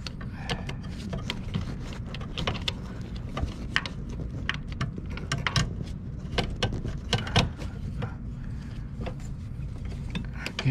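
Hand ratchet clicking in short, irregular strokes as a 5/8 spark plug socket on a 6-inch extension is worked on a tight spark plug down in its well.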